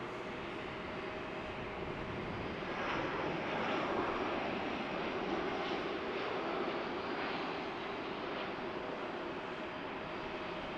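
Airbus A319-131 airliner taxiing, its IAE V2500 turbofan engines running at taxi power: a steady jet hum with a faint held tone, swelling a little a few seconds in as the aircraft comes closer.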